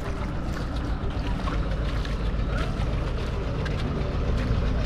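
An engine running steadily, with water sloshing and splashing over it.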